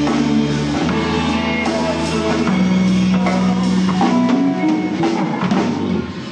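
Rock band music: drum kit and electric guitars playing a steady groove over sustained bass notes.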